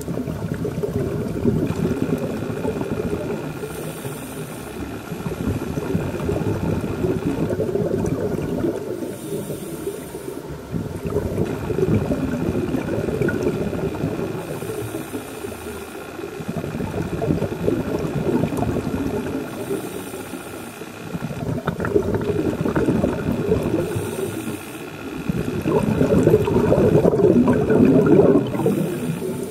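Scuba regulator breathing underwater. A short hiss of inhaled air comes about every five seconds, each followed by a long rumble of exhaled bubbles.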